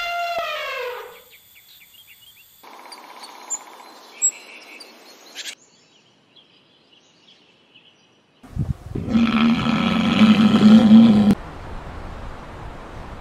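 Animal calls: a falling call that ends about a second in, then after a quiet stretch a loud, rough roaring call lasting about three seconds.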